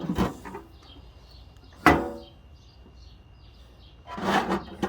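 A vintage Craftsman machinist's tool box being opened and its drawers handled: wooden knocking and sliding, with one sharp knock about two seconds in.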